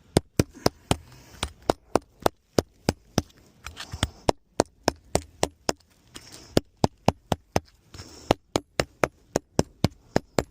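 A rapid run of sharp taps, about three a second, with a few short breaks.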